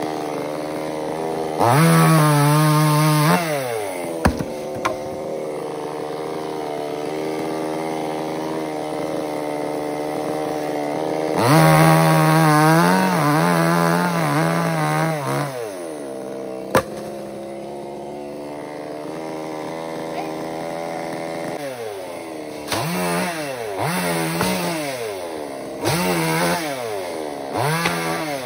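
Two-stroke chainsaw idling and revving up in repeated bursts: two long revs of a few seconds each, then several shorter quick revs near the end, dropping back to idle between them. Two short sharp knocks are heard in the quieter stretches.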